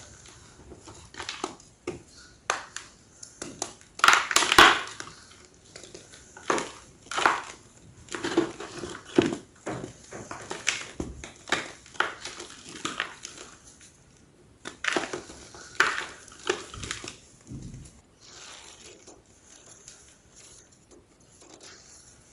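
Large slabs of gym chalk crunching and crumbling in a run of irregular sharp crunches. The loudest come about four seconds in, and they grow sparse and quieter near the end.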